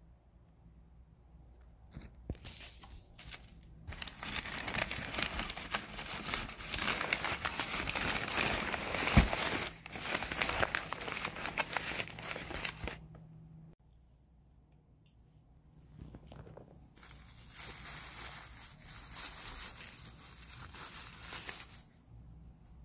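Newspaper packing and plastic wrapping crinkling and rustling as they are handled in a cardboard box, in two long stretches with a pause between, and one sharp knock about nine seconds in.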